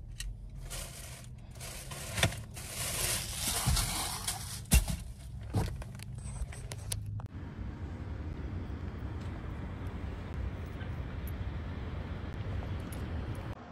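Rustling with a few sharp knocks from a hand-held phone being moved around, then, after an abrupt change about seven seconds in, a steady outdoor hiss of wind and distant traffic.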